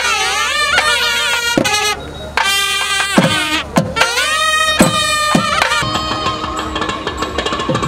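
Music: heavy drum strokes about every second under a high, ornamented melody, turning into a denser passage without the big drum beats about six seconds in.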